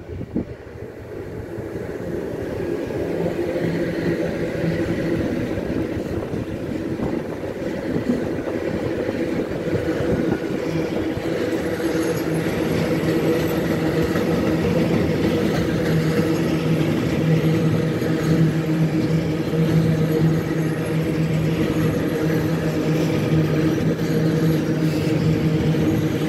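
Freight train hauled by three electric locomotives, a DB Cargo Vectron class 193 leading and two class 189s behind, growing louder as it approaches and passes, then a long string of gas tank wagons rolling by with a steady rumble and hum of wheels on rail. A short sharp click about half a second in.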